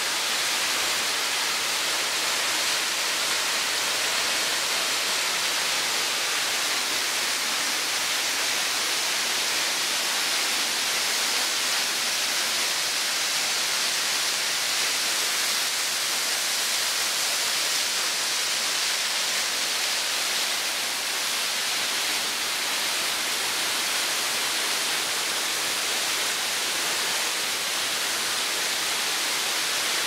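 Steady hissing rush of a 19-metre waterfall plunging into a narrow crevice cave and splashing onto rock and into its pool.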